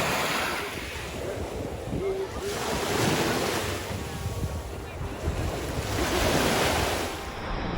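Sea waves washing onto the shore in swells about every three seconds, with wind rumbling on the microphone.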